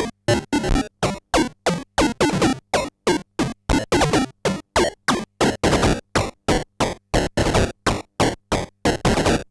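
Soulsby miniAtmegatron 8-bit synthesizer playing a fast sequence of short, sharply cut-off buzzy notes, about four a second, with the tone shifting from note to note.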